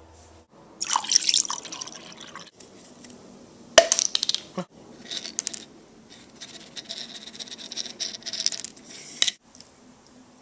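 Liquid poured from a bottle into a small cup, coming in several splashy runs, with one sharp knock about four seconds in.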